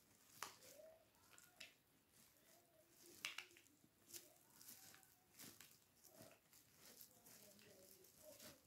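Near silence broken by faint, scattered crinkles and ticks of a plastic bag of walnuts being handled and opened.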